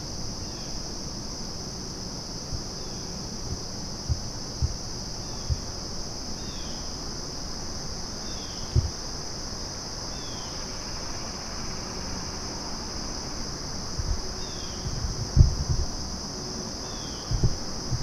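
Steady high-pitched chorus of crickets in the woods, with a faint short falling chirp repeating every second or so. A few low bumps come near the end.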